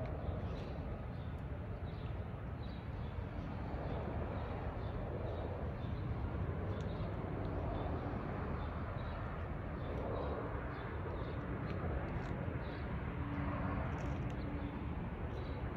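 Jet airliner on approach to land, its engines a steady distant rumble overhead. A bird chirps over it about twice a second.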